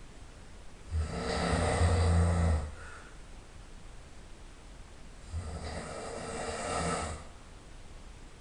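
A person snoring loudly in sleep: two long, rough snores about four seconds apart, each lasting under two seconds, the second softer than the first.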